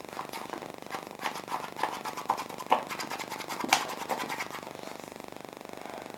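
Homemade slime being squeezed and kneaded by hand, giving irregular wet clicks and squelches for about four and a half seconds, with the sharpest click near the four-second mark, then dying away.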